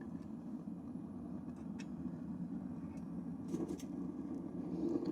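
Propane burner of a small smelting furnace running steadily at a low setting: an even, low rumble, with a few faint ticks partway through.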